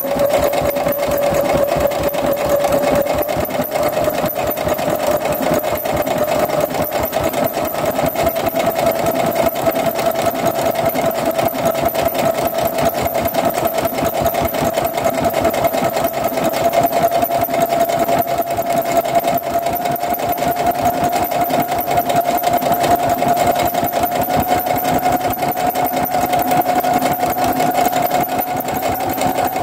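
Electronic sewing machine running without a break, stitching a programmed decorative stitch: a steady motor whine that creeps slightly higher in pitch over the stretch, under rapid needle strokes.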